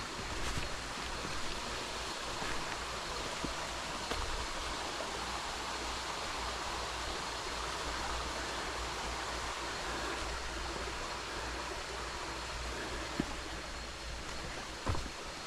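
Creek water running in a steady rushing hiss, with a couple of faint knocks near the end.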